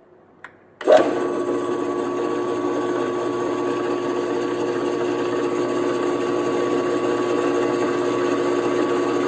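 Allwin 12-inch variable-speed drill press with a 500-watt induction motor: a small click, then about a second in the motor starts and runs steadily with an even whine, the spindle turning freely with no drilling.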